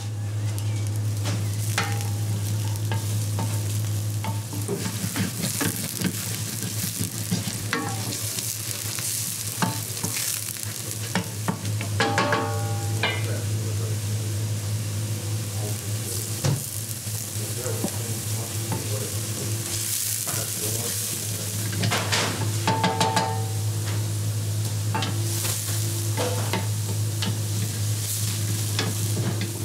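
Chopped onion frying and sizzling in oil in a pan on a gas range, stirred and scraped with a wooden spatula. A steady low hum runs underneath, and metal rings out in brief clinks about twelve and twenty-two seconds in.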